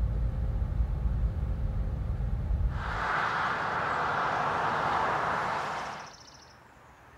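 Steady low engine rumble heard from a car on a ferry's car deck. It cuts abruptly to a loud, even rushing noise, which stops just as abruptly about three seconds later. Faint ambience with a few short high chirps follows.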